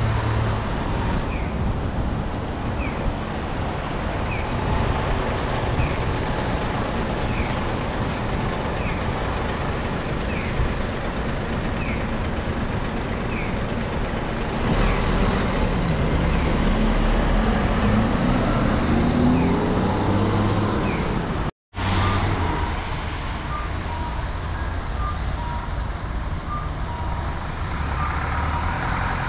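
Diesel bus engines and road traffic: a large coach's engine climbs in pitch as it pulls away, with a short hiss of air about a quarter of the way in. A short high chirp repeats about once a second for the first two-thirds, and after a sudden break a steady beep repeats about once a second as a small bus turns.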